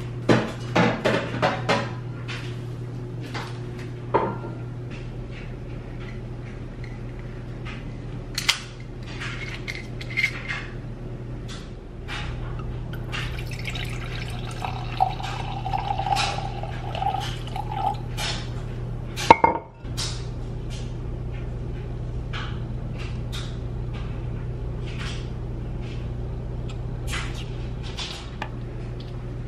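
Kitchen clatter: dishes and glassware clinking and knocking, with some liquid sounds, over a steady low hum. The loudest clack comes about 19 seconds in.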